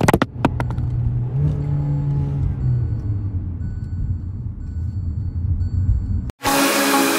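Car engine running, a steady low rumble heard from inside the cabin, with a few sharp knocks at the very start. About six seconds in it cuts off abruptly and loud electronic music begins.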